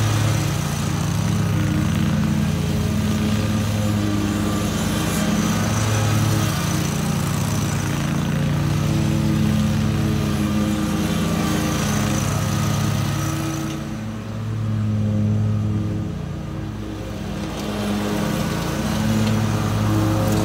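Zero-turn riding mower engine running steadily while towing a spike aerator across a lawn. Its sound dips and turns duller for a few seconds about two-thirds of the way through, then comes back up.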